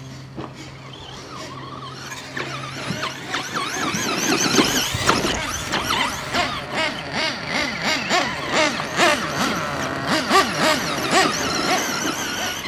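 Several radio-controlled off-road cars racing past, their motors making high whines that rise and fall quickly as they throttle up and down. The whine gets loud about two seconds in.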